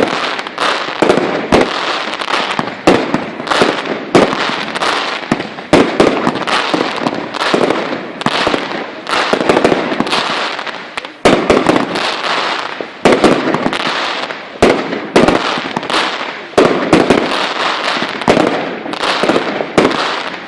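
Consumer fireworks going off in quick succession: dense bangs several a second, each trailing off into crackling, with no pause.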